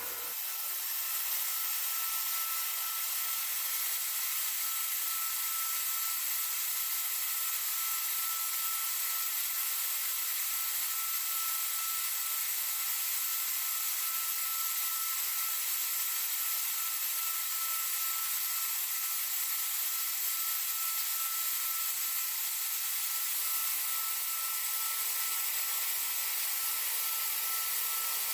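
3-axis CNC machining centre milling: a steady, high-pitched spindle whine over an even cutting hiss, with a second, lower tone joining near the end.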